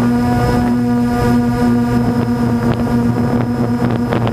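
DJI Phantom quadcopter's electric motors and propellers humming at a steady pitch, as picked up by the drone's onboard camera in flight.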